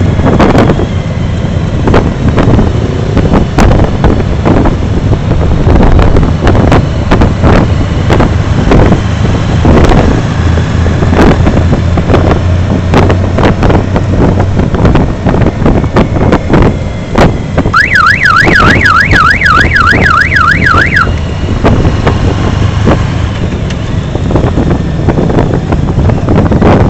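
Motorcycle engine running on the move with wind gusting over the microphone. Past the middle, a siren-like electronic tone warbles up and down about three times a second for about three seconds.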